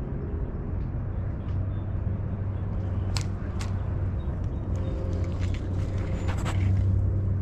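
Low steady wind rumble on the microphone, with rustling and a series of sharp clicks as bankside reeds are handled, mostly in the second half.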